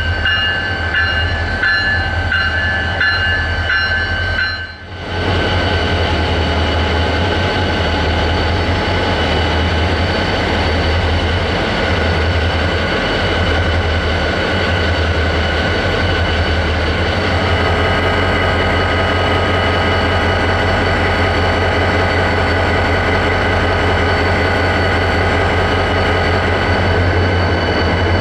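EMD GT26CW-2-based NGT26CW-3 diesel-electric locomotive standing with its V16 two-stroke diesel engine running at idle: a steady low throb with a few steady whining tones above it. It briefly drops away about five seconds in, then carries on unchanged.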